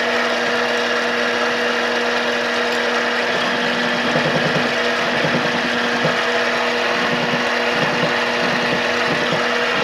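Small benchtop metal lathe running at a steady speed with a constant whine, its cutting tool against a spinning hardened steel gear shaft. The cutter only polishes the hardened steel instead of taking material off, and the shaft flexes under it.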